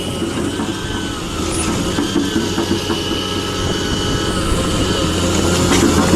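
Volvo EC290B LC excavator's diesel engine running steadily with thin high whines over it, growing slowly louder.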